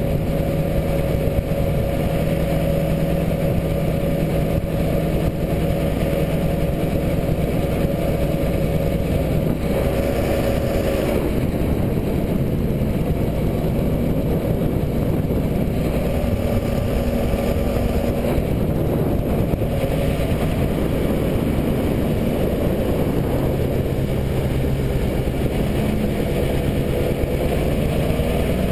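ProDrive surface-drive mud motor running steadily, pushing the jon boat along. Its engine speed shifts slightly a few times.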